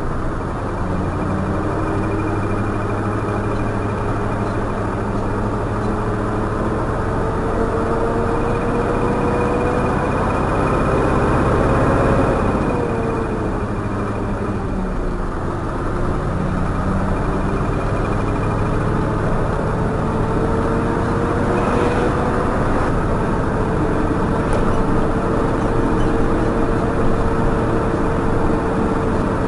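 Truck engine and road noise heard from inside the cab while driving, the engine note slowly rising as it gathers speed. There is a louder swell about twelve seconds in, where the pitch dips, before it climbs again.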